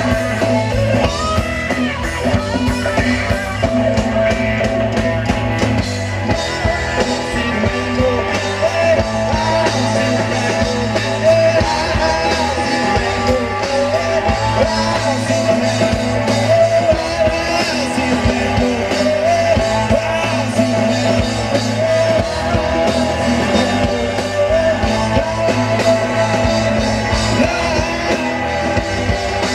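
Live rock band playing: electric guitar, bass guitar and drum kit, with a sung vocal over the top.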